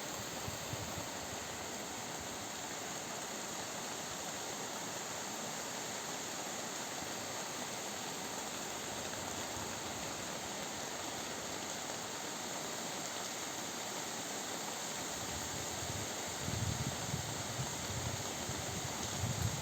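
Steady rain falling, a continuous even hiss. In the last few seconds, uneven bursts of low rumble come in over it.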